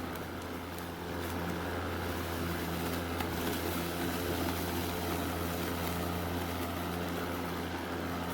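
Ryobi 40-volt brushless battery push mower (RY40180) running steadily as it is pushed across the lawn, its motor and spinning blade giving an even hum.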